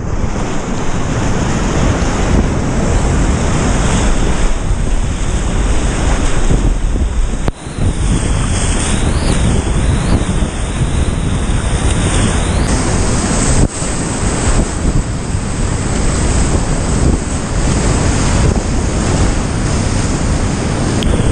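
Big high-water whitewater rapids rushing and crashing around a kayak as it runs a long wave train, loud and steady, with heavy rumble from water and wind buffeting the microphone.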